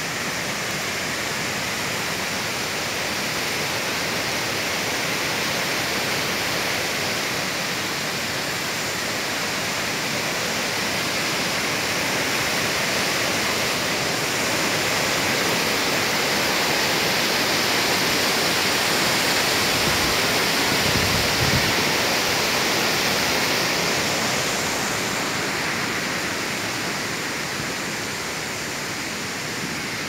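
Waterfall pouring over rock: a steady rush of falling water that swells to its loudest around the middle and eases off near the end, with a few brief low thumps a little past two-thirds through.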